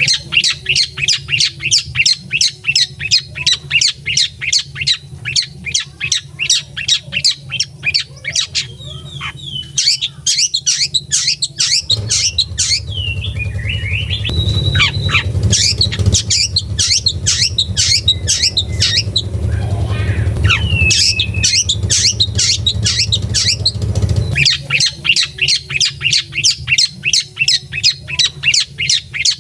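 Young long-tailed shrike giving rapid, harsh chattering calls, about three or four a second, with a few whistled sliding notes mixed in around the middle. A low rumble runs under the middle stretch and stops about two thirds of the way in.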